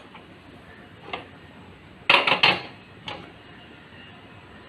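Sharp clicks and clanks of a non-stick cooking pot being set down on the metal pan supports of a gas hob: a light click about a second in, three quick loud clanks about two seconds in, and one more shortly after.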